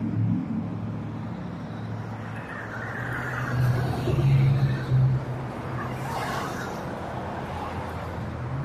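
Road vehicle noise: a low engine hum under a steady wash of traffic noise, swelling about four seconds in and easing off again.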